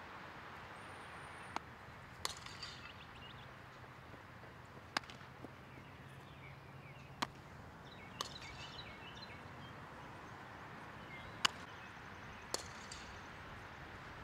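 Scattered sharp cracks and pops from softball fielding practice, a ball being hit and smacking into a glove, about seven in all at uneven intervals over a steady outdoor background hiss.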